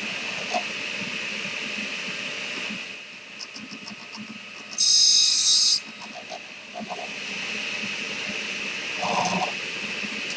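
Table saw running with a steady whine, its blade cutting through a wooden dowel in one loud, high-pitched cut lasting about a second midway, with a few light knocks of dowels being handled.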